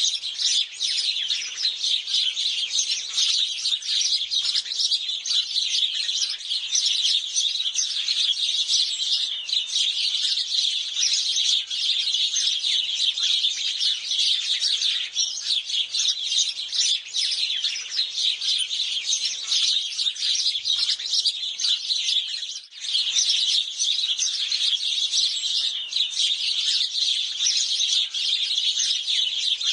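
A flock of house sparrows chirping continuously, many short overlapping chirps at once, with a brief lull about three-quarters of the way through.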